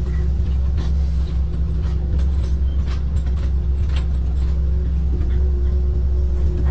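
Kobelco amphibious excavator's diesel engine running steadily, heard from the cab, as the hydraulic arm lifts and swings the bucket, with a few light clicks and knocks scattered through.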